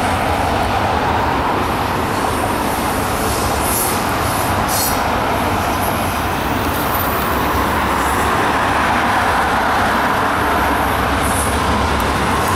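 Double-stack intermodal well cars of a freight train rolling past with a steady rumble of wheels on rail. A few brief high-pitched wheel squeals come about four and five seconds in and again near the end.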